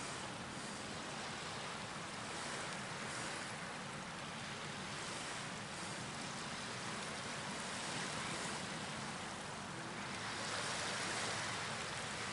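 Steady rushing of water and wind as a loaded container ship passes close by, with a faint low hum underneath.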